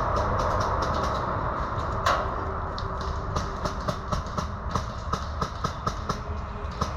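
Airsoft guns firing: a string of sharp clicks and snaps, one louder crack about two seconds in, then a quicker run of about three a second, over a steady low rumble.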